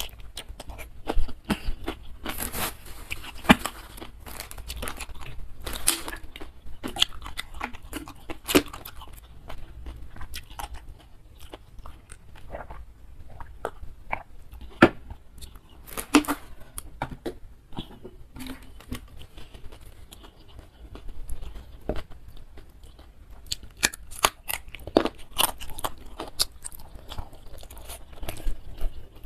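A person eating close to the microphone: biting, chewing and crunching food, with many irregular sharp crunches, busiest early on, again around the middle and near the end.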